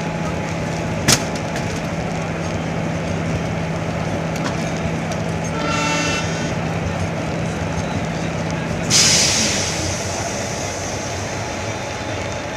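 Passenger train running along the track with a steady rolling noise and a low hum, a sharp click about a second in, a brief pitched whine around the middle, and a sudden hiss near the end that fades away.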